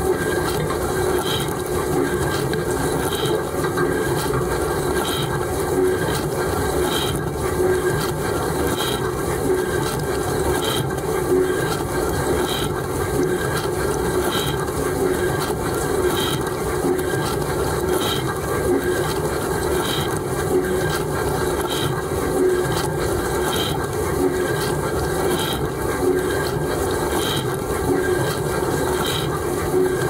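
Bosch dishwasher in its rinse stage, heard from inside the tub: the pump running steadily while water sprays over the racks and dishes, with a faint tick about every two seconds.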